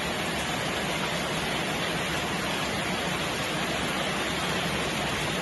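Steady rain falling, an even hiss with no separate drops or thunder standing out.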